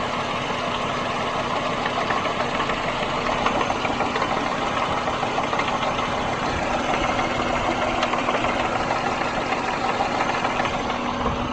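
1999 Subaru Legacy Outback's EJ25D 2.5 L flat-four engine idling rough, with an intermittent knocking from the rear driver's side that is heard only at idle. Small irregular ticks run over a steady hum.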